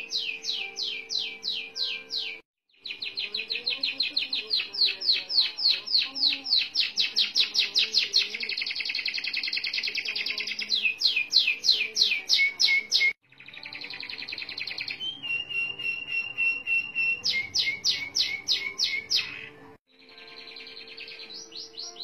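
Canary singing long rolling trills: fast strings of notes, each sweeping down in pitch, some at a few notes a second and some run together into rapid rolls. The song cuts off abruptly three times and then resumes.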